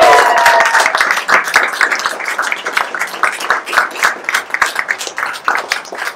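Small crowd applauding with quick, uneven handclaps; a held cheer fades out in the first second, and the clapping thins toward the end.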